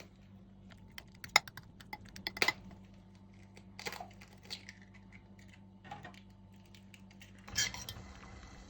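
Kitchen utensils and dishes clinking and knocking: scattered sharp clinks, loudest a little over a second in and around two and a half seconds, with a short clatter near the end.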